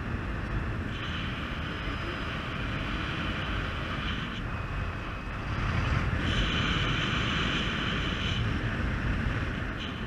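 Wind rushing over the microphone of a paraglider in flight during a fast descent of about 12 metres per second: a steady buffeting noise with a higher hiss that swells and fades every second or two, louder from about halfway through.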